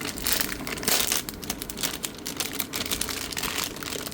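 Packaging crinkling and rustling in irregular bursts as a new aftermarket laptop battery is unwrapped.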